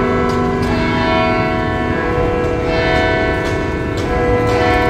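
Church bells ringing, several bells struck one after another, their tones overlapping and ringing on, with a low rumble underneath.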